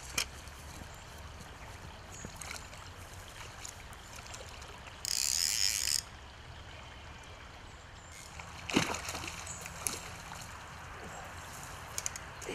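A fly reel's click-pawl ratchet buzzes for about a second as a hooked rainbow trout takes line. Behind it is the faint rush of river water, with a few sharp knocks later on.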